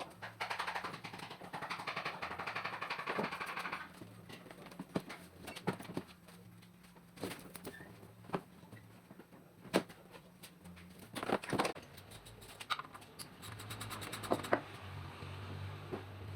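A hiss for about three seconds at the start, then scattered clicks and knocks of tools and metal parts being handled during engine work, over a faint steady hum.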